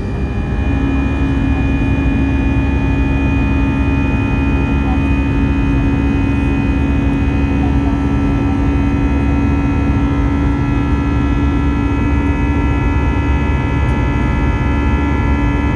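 Airliner cabin noise inside an Airbus A319: the steady drone of its CFM56 engines and airflow, laced with several steady tones. A strong hum settles onto a lower steady note about a second in.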